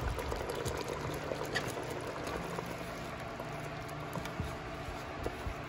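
Beef broth with sliced onions bubbling in a Dutch oven and being stirred with a wooden spoon: a steady liquid bubbling and sloshing, with a few light clicks.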